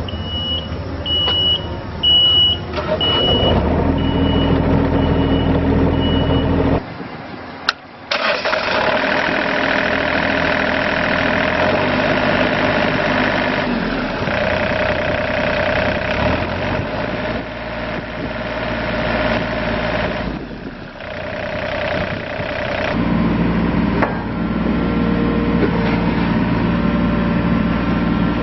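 John Deere 27D mini excavator's diesel engine being started: a warning buzzer beeps about once a second for the first several seconds as the engine turns over and catches. After a short break the engine runs steadily, its note shifting several times as the machine works.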